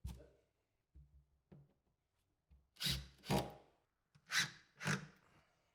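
Short scraping rubs of wood, coming in two pairs: one about three seconds in and one about four and a half seconds in, with a few faint taps before them.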